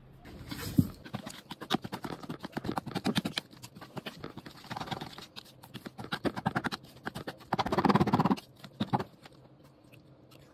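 Metal spoon clinking and scraping against a stainless steel bowl in rapid, irregular strokes as rice is mixed. There is a louder stretch of scraping about three-quarters of the way through, and it stops about a second before the end.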